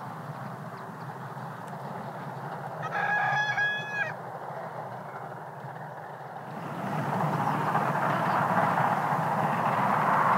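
A narrow-gauge steam locomotive's whistle gives one steady blast about three seconds in, lasting about a second with a brief break in the middle and sagging in pitch as it dies. Under it is the steady low rumble of the train running away along the track. From about seven seconds a louder, steady rushing noise takes over.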